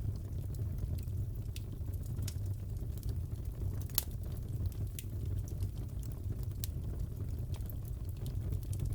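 Wood fire crackling in a fireplace: a steady low rumble with scattered sharp pops and snaps, the loudest about four seconds in.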